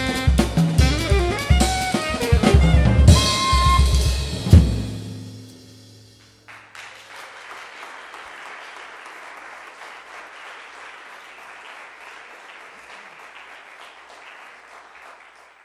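Alto saxophone and drum kit playing the closing bars of a jazz tune, ending on a loud final hit about four and a half seconds in, with the cymbals ringing down. About two seconds later steady applause starts, and it cuts off abruptly near the end.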